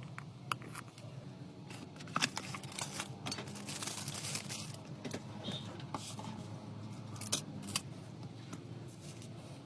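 Small clicks, taps and scraping from hand tools and small parts being handled during an old mobile phone repair, over a steady low hum. The scraping is busiest from about two to five seconds in, and two sharp clicks come near the end.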